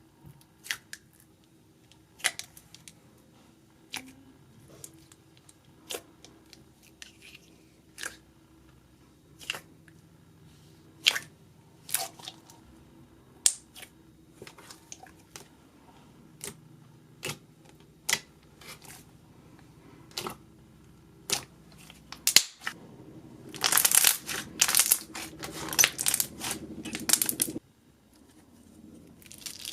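Slime being pressed and poked, giving sharp clicky pops about once every second or two, then a dense crackling stretch lasting about four seconds, a little past the middle.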